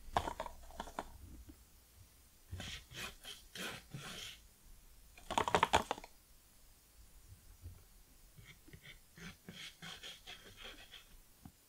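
Light tapping and scratching of a paintbrush working on paper, in four short clusters, the loudest about halfway through.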